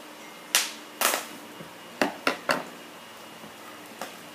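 Scissors snipping through a plastic toy package: about six short, sharp cuts at irregular intervals, with a quick run of three near the middle.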